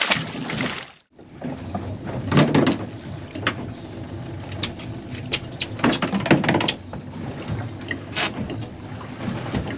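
Wind buffeting the microphone and water noise around a small boat at anchor, steady with a few louder gusts.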